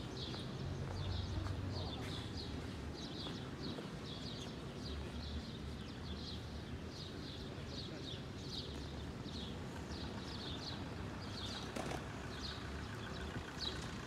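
A small bird chirping over and over, short high chirps a few times a second, over a low background rumble.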